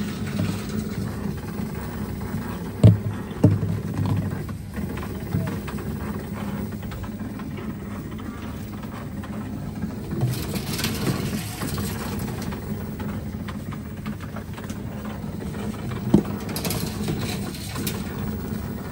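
Tomra reverse vending machine taking in plastic deposit bottles one at a time: steady mechanical running with a few short knocks as bottles go in, two close together about three seconds in, another a couple of seconds later and one near the end.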